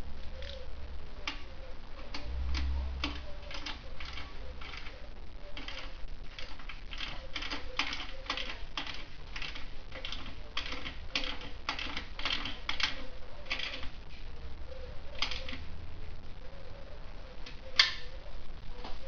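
Irregular sharp clicks and taps, several a second in clusters, with one louder click near the end.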